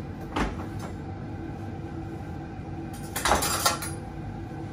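A metal spoon clinking and scraping against a small stainless steel saucepan for under a second, past the middle, after a single knock near the start, over a steady low background hum.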